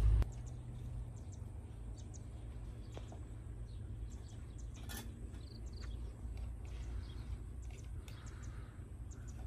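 Quiet pond-side ambience: a low steady rumble with faint, scattered short bird chirps.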